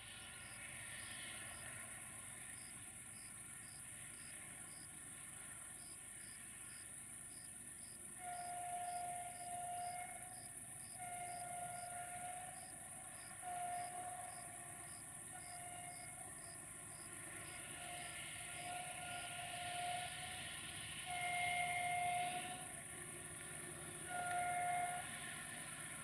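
A GM diesel locomotive's horn sounding a series of about eight blasts of one pitch, some short and some long, as the train approaches. The loudest blast comes near the end.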